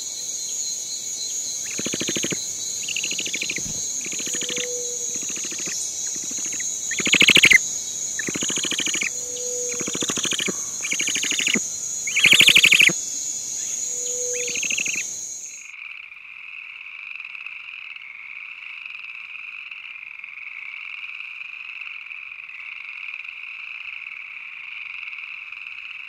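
Rainforest ambience: frogs croaking about once a second over a steady high insect drone, with two croaks louder than the rest. Just over halfway through, this cuts abruptly to a steady, lower buzzing drone.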